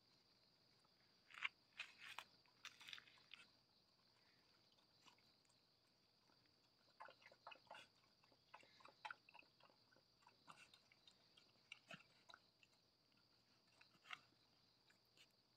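Faint, scattered clicks and crunches of puppies mouthing and play-biting each other on a fabric dog cot. They come in two spells, a short one about a second in and a longer one from about seven seconds in.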